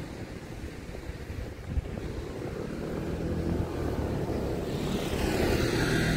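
A motor engine growing steadily louder over a low rumble as it draws near.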